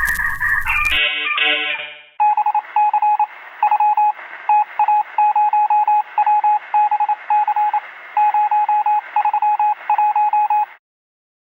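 Electronic music ends, a few chime notes sound, then a long run of single-pitch electronic beeps of uneven length comes through a narrow, telephone- or radio-like sound. The beeps stop suddenly near the end.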